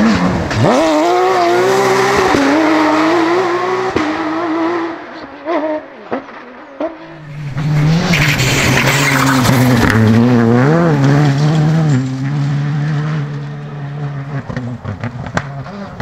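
Rally cars driven hard on a special stage, one after another: engines revving up and dropping through gear changes and lifts off the throttle. Partway through a hiss of tyre noise rides over the engine, and near the end a car's engine holds a quieter, steady note.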